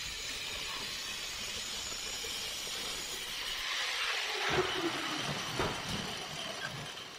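Angle grinder with a cutting disc cutting into a steel tank, a steady hiss. About four and a half seconds in, a few metal knocks follow as the cut tank is handled.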